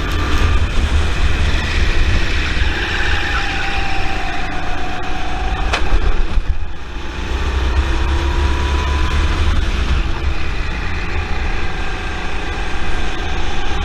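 Rental kart's Honda four-stroke engine running hard, heard onboard with heavy wind rumble on the microphone. The engine note falls as the kart slows for a tight hairpin about six seconds in, then climbs again as it accelerates out.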